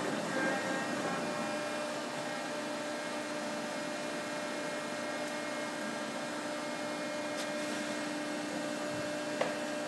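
Binns & Berry Trident L850 oil country lathe running under power, a steady mechanical hum with constant tones from its drive. A short sharp click near the end.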